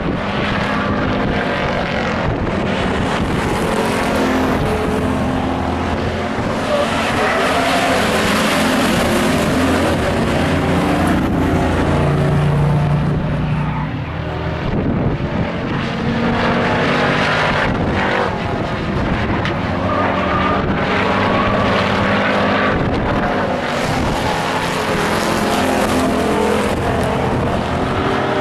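Stock pickup trucks racing, their engines running hard, the pitch rising and falling as they pass through the turns and down the straights.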